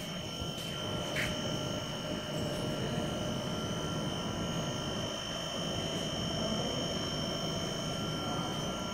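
A running 200 kWe fluidized-bed biomass gasifier plant: a steady mechanical roar with several steady high whines over it.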